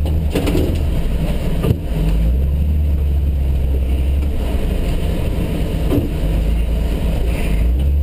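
A 1973 Toyota Land Cruiser FJ40's straight-six engine running at low revs as a deep steady drone that swells and eases with the throttle. A single sharp knock comes nearly two seconds in, with a lighter one about six seconds in.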